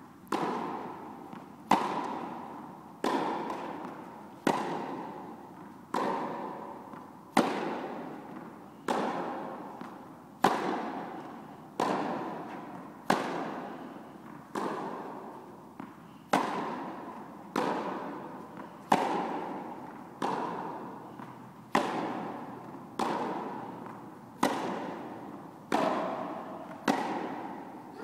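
Tennis ball struck by rackets in a steady baseline rally, a hit about every second and a half. Each crack rings on with a long echo in the reverberant indoor tennis hall.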